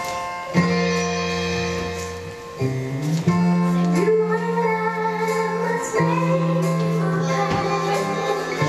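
Music with singing over sustained chords and a bass line that changes note every couple of seconds.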